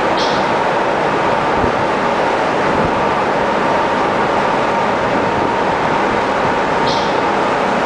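Icebreakers moving through pack ice: a loud, steady rumbling noise of ship machinery and ice, with a faint steady hum. Two brief high squeaks, one just after the start and one near the end.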